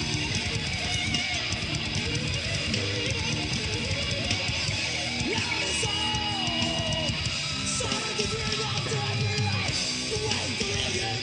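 Thrash metal band's 1996 demo tape recording: electric guitars and bass playing a heavy metal passage.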